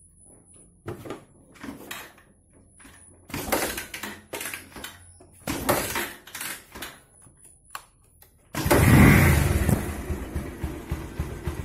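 Bajaj Pulsar 150's single-cylinder four-stroke engine starting about two-thirds of the way through, with a loud burst that eases into a steady, fast-pulsing idle. A few scattered knocks and clicks come before it.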